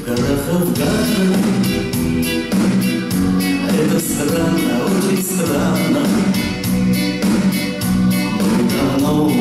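Small band playing a song live: acoustic and electric guitars, bass guitar and keyboard over a steady beat.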